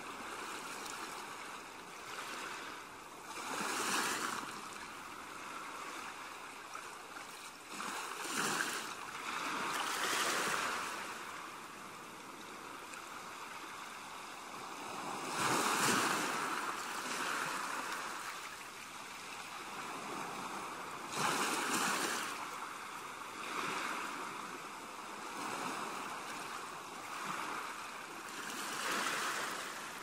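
Ocean surf breaking on a beach: a steady hiss of water with a louder wash swelling and fading every few seconds as each wave comes in.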